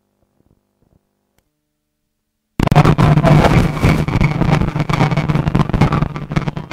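Nearly silent at first; about two and a half seconds in, loud, distorted street noise cuts in suddenly, a steady engine hum under a dense clatter of knocks and handling noise.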